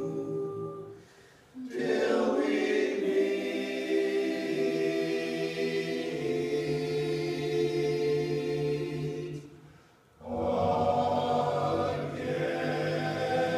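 A choir singing slow, held chords in long phrases, breaking off briefly twice, about a second and a half in and again about ten seconds in.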